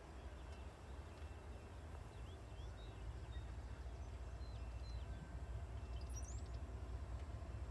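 Birds chirping in short, scattered calls over a steady low rumble that grows slowly louder.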